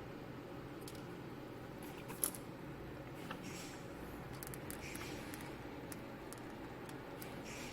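Quiet handling of a headphone cable and earcup by hand: faint rustles and small ticks, with one sharp click about two seconds in, over a steady low room hum.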